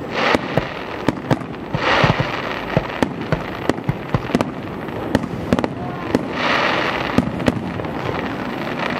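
Aerial firework shells bursting: sharp bangs at irregular intervals, with swells of crackling hiss about two seconds in and again around six to seven seconds in.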